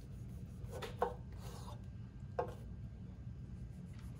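Kitchen knife slicing through limes on a bamboo cutting board, with soft scraping and two sharp knocks of the blade on the board, about a second in and again near two and a half seconds, over a low steady hum.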